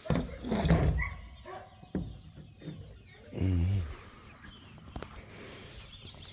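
A dog gives one deep woof about three and a half seconds in, after a second of loud knocking and rustling close to the microphone.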